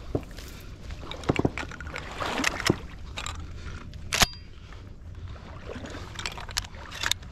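Irregular clicks and knocks of a handheld camera being jostled and handled, the sharpest about four seconds in, over water sloshing in a shallow marsh.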